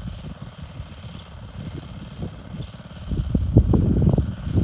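Wind buffeting the phone's microphone: a low, uneven rumble that gusts louder about three seconds in.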